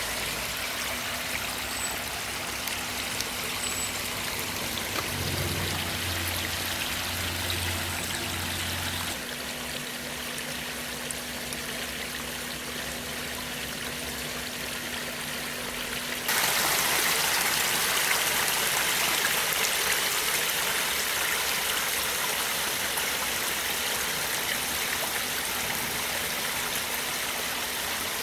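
Water running down a garden stream and spilling over a pondless waterfall: a steady splashing trickle that grows suddenly louder about sixteen seconds in.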